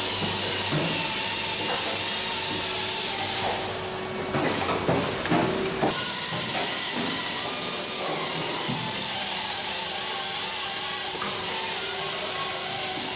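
Vacuum cleaner running with a steady suction hiss while debris is cleared out of a wing structure. For a couple of seconds about a third of the way in, the hiss drops away and is replaced by a few irregular knocks and rattles, then the steady suction returns.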